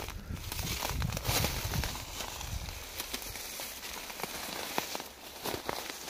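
Footsteps and rustling through forest undergrowth, with scattered sharp crackles of twigs and litter and a low rumble in the first two seconds.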